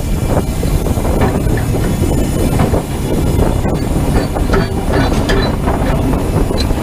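Ride noise in the cab of a narrow-gauge steam locomotive under way: a steady low rumble with irregular clanks and rattles.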